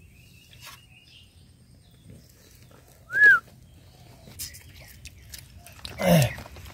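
One short, clear whistled note that rises and falls in pitch, about three seconds in, over a faint background. Near the end comes a brief low vocal sound, falling in pitch.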